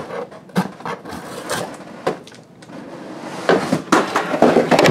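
Plastic shrink-wrap on a cardboard filter box being slit with a knife and pulled off, crackling and crinkling in scattered clicks, growing into dense crinkling from about three and a half seconds in.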